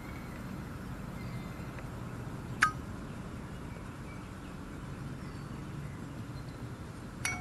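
A screwdriver clinking sharply against the rear fan cover of a small Harbor Freight electric pump as it is worked into the hole to turn the motor's cooling fan by hand, checking that the motor spins freely. There is one sharp clink a couple of seconds in and another near the end that rings briefly, over a low steady background.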